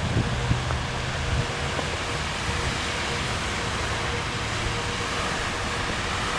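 Steady outdoor background noise: a low hum under an even hiss, with a faint steady tone running through it.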